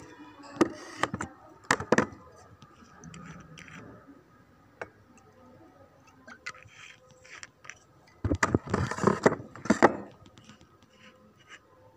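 Knocks and clatter of hard objects being handled: a few separate knocks in the first two seconds, then a burst of rapid clattering about eight to ten seconds in.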